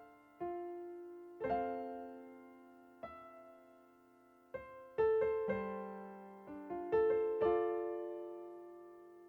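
Slow, gentle solo piano music: sparse single notes and soft chords, each struck and left to ring and fade, with a short pause a few seconds in.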